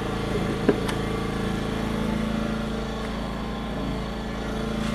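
Small portable inverter generator running with a steady, even hum. A single sharp click a little under a second in as the charge connector is pushed into the Tesla's charge port.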